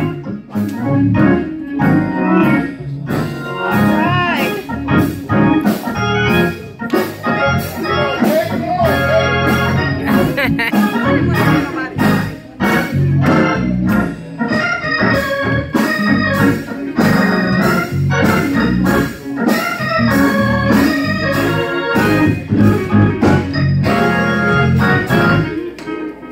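Live church band music: an organ playing full chords while a drum kit beats out a steady, busy rhythm, breaking off at the very end.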